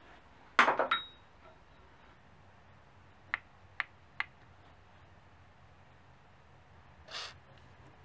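Rusty steel parts of an old hand-crank valve lapping tool clinking as they are handled and taken apart: a loud rattle of metal clinks with a brief ring about half a second in, then three light clicks around the middle and a short scrape near the end.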